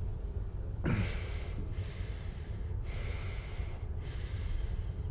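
A man breathing hard in sharp breaths: a sudden gasp with a short falling groan about a second in, then a longer, noisier breath from about three to four seconds in.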